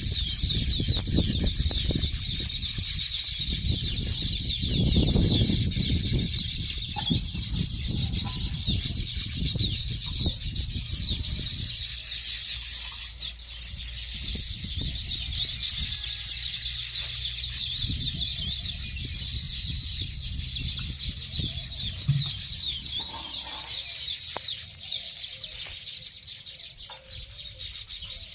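A colony of baya weavers chirping and chattering together, many overlapping high chirps without a break. A low rumble runs under the chirping for the first half and then fades.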